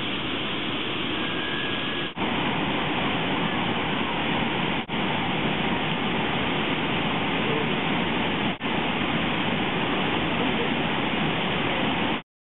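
Steady rushing of water pouring over Brooks Falls. It drops out for a split second three times and cuts off suddenly near the end.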